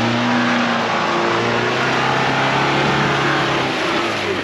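Ford Bronco's engine running under load as the 4x4 crawls through and out of a deep rutted trench, its pitch shifting a little and easing off near the end.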